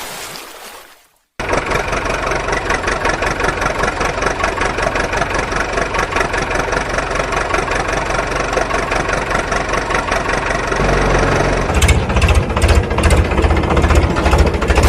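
Heavy construction-vehicle engine running with a fast, even pulse. The sound cuts out about a second in, then comes back, and near the end it turns heavier and lower-pitched.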